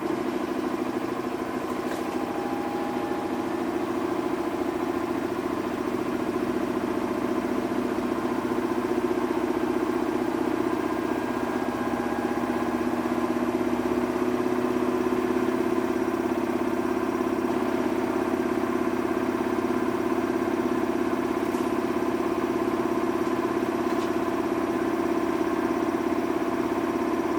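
Samsung washing machine running with a steady motor hum of several held tones, swelling slightly partway through.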